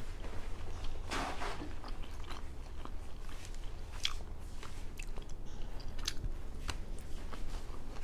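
A person chewing a mouthful of Japanese takeout food (sashimi and sides) close to the microphone: irregular short wet clicks and smacks of the mouth, with a longer chewing noise about a second in.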